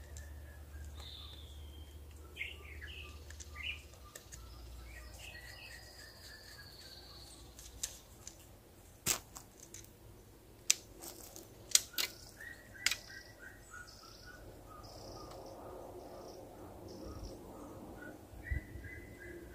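Wild birds calling throughout, with repeated chirps and short runs of notes that fall slightly in pitch. Around the middle, a handful of sharp clicks from a fishing rod and spinning reel being handled and fitted together.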